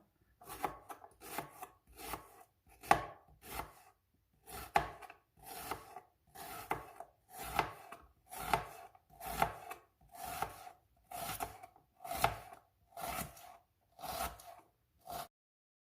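Kitchen knife chopping an onion into small pieces: even, separate cuts at about two a second, each with a short knock, stopping shortly before the end.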